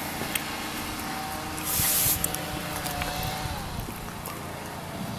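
A short, sharp hiss of spray about two seconds in, over a steady low hum.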